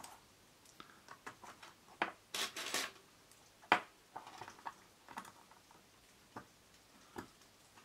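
Bicycle-spoke wire pot stands clicking and scraping against a small metal can stove as they are slotted into its holes: a series of light, irregular metallic clicks with a few brief scrapes.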